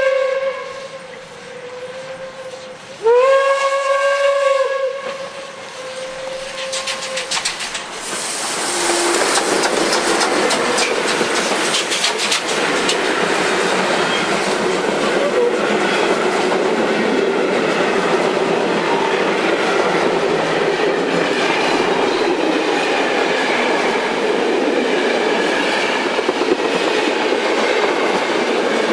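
Two DB class 23 steam locomotives double-heading a passenger train. The steam whistle sounds twice: a blast dying away in the first two seconds, then a second blast about three seconds in. From about eight seconds in, the locomotives and coaches pass close by with a loud, steady rush and clatter of wheels on the rails.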